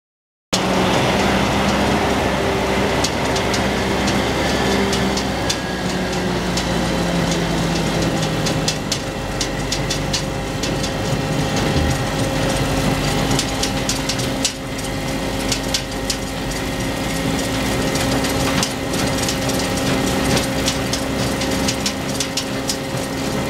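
Massey Ferguson 8600-series tractor engine running steadily while pulling a Lockwood potato harvester. The harvester's chains and conveyors keep up a constant clatter of potatoes and dirt clods knocking. The sound starts abruptly about half a second in.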